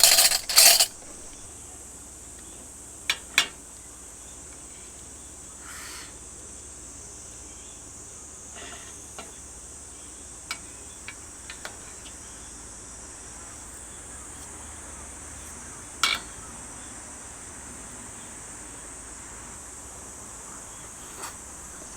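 Steady high-pitched insect chorus, with a few sharp clinks of knife and fork on a plate; the loudest come in the first second, with others about three and sixteen seconds in.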